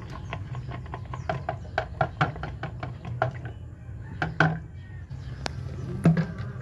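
Liquid glugging out of an upside-down plastic bottle into a bucket, a quick even run of glugs about four a second that thins out after about three seconds, over a steady low hum.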